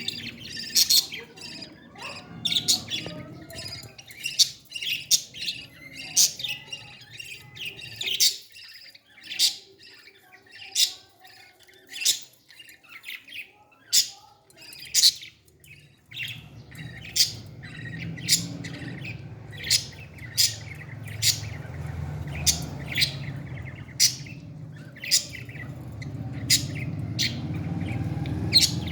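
Parrot giving short, sharp, high chirps over and over, about one or two a second. A low steady rumble sits underneath from about halfway through.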